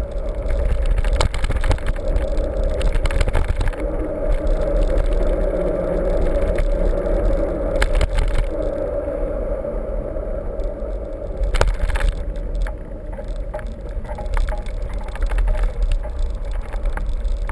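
Mountain bike being ridden over rough ground: steady wind rumble on the microphone with scattered clicks and rattles from the bike.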